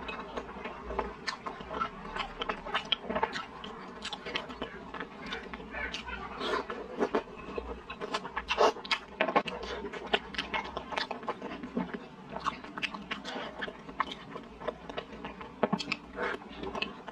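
Close-miked chewing of a steamed stuffed bun (baozi), heard as many irregular mouth smacks and clicks, with another bite taken near the end.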